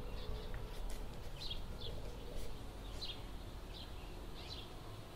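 A bird chirping: short high chirps, about six of them at irregular intervals, over a faint low rumble.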